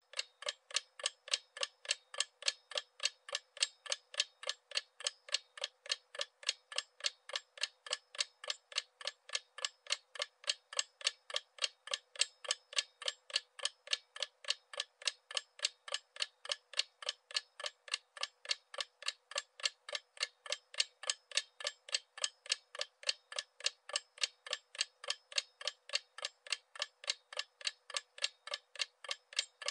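Clock ticking sound effect: a steady, even run of sharp ticks, about three a second.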